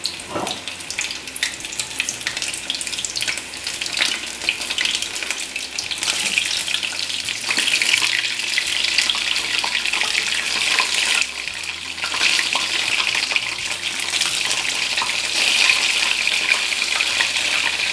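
Batter-coated mushroom pieces deep-frying in hot oil in a kadai: a steady, crackling sizzle that swells louder for a few seconds at a time.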